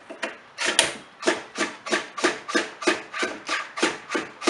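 Muffler bolts on a two-stroke blower engine being loosened with a tool: an even run of short rasping clicks, about three a second, starting just under a second in.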